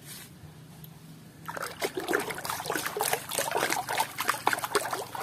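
Water splashing and sloshing in a bucket as a hand swishes and scrubs a muddy plastic toy duck in it, starting about a second and a half in.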